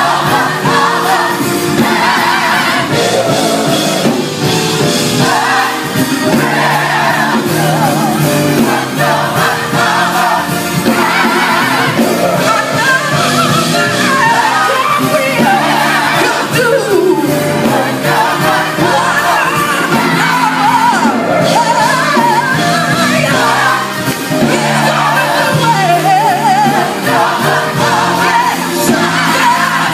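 Gospel choir singing live over amplified instrumental accompaniment, loud and continuous, with a steady bass line under the voices.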